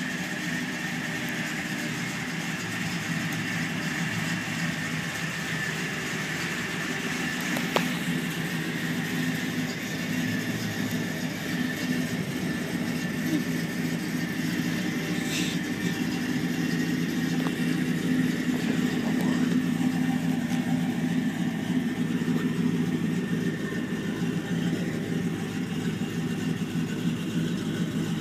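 Ford 302 (5.0 L) V8 with an aftermarket cam, headers and Flowmaster exhaust, idling steadily. It grows gradually louder as the tailpipe comes closer.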